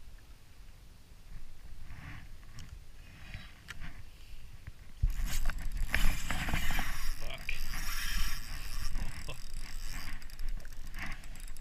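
Spinning reel being cranked and a rod worked while playing a hooked fish, with rustle and handling noise on the camera; it starts suddenly about five seconds in, after a quieter stretch with a few faint clicks.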